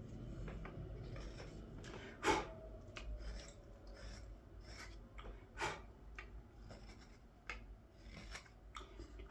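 Carving knife slicing green wood in short, irregular strokes as a wooden ladle is shaped by hand, with the sharpest cut about two seconds in.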